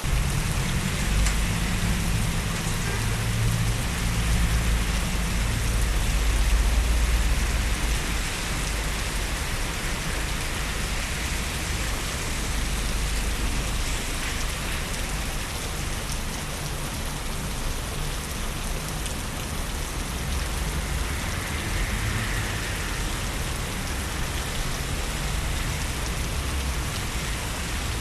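Steady rain falling on a wet city street, an even hiss. A low rumble sits under it for the first several seconds, then fades.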